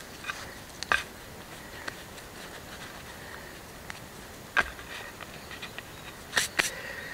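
Hands working bread dough on a carved wooden plate: flour scraped and rubbed across the wood, with a few sharp knocks against the plate about a second in, midway through and twice in quick succession near the end.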